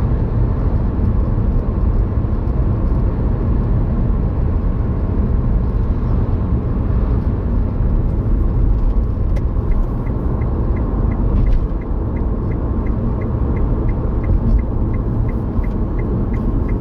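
Car moving on the road, with steady low engine and road rumble. About halfway through, a light, regular ticking starts at roughly two to three ticks a second.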